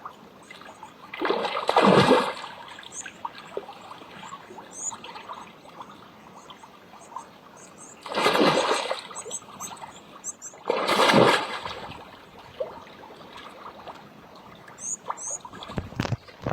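Water splashing in three bursts of about a second each, with faint high chirps between them.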